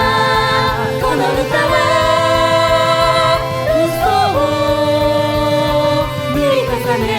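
Pop song: long held sung notes that shift pitch every second or two, over a steady low drum beat.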